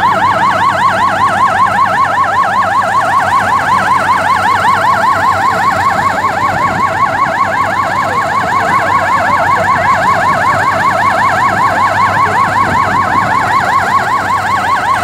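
Electronic emergency-vehicle siren on a fast yelp, sweeping up and down several times a second without a break.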